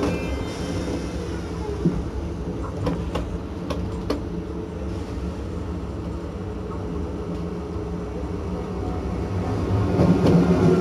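CP 2300 series electric multiple unit running, with its Siemens/EFACEC 1TB2222 three-phase asynchronous traction motors: a steady rumble of wheels on rail with a few sharp clicks about three to four seconds in. The motor hum grows louder again near the end.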